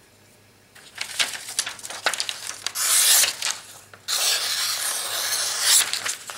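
A freshly convex-sharpened SOG Seal Pup Elite knife slicing through sheets of printer paper in a sharpness test. From about a second in come a few short cuts and paper rustles, then from about four seconds in one longer continuous slicing cut.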